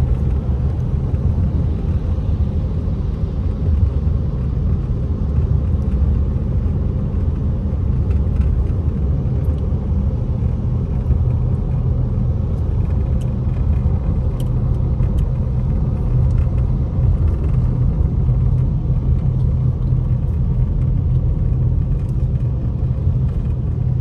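Steady low rumble of a car driving on a wet road, heard from inside the cabin: tyre and engine noise with no change in pace.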